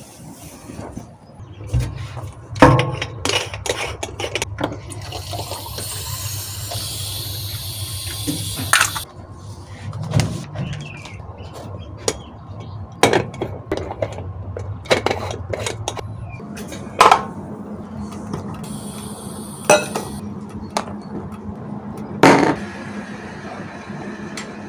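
Pots, cups and utensils clinking and knocking with water being poured while coffee is made, under a low steady hum and a stretch of hiss a few seconds in.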